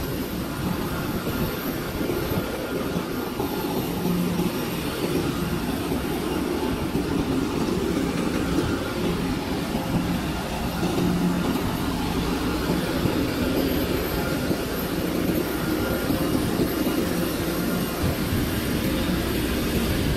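Aircraft engine noise: a steady drone with a low hum that swells and fades every few seconds.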